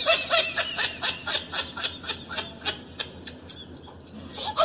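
High-pitched, sped-up cartoon laughter sound effect in quick repeated bursts. It fades out about three seconds in and starts up again near the end.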